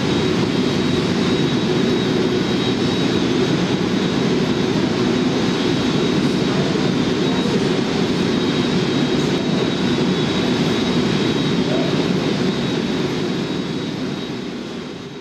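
Emirates Airbus A380's four Engine Alliance GP7200 turbofans running at taxi power: a steady jet rumble with a thin high whine, fading out near the end.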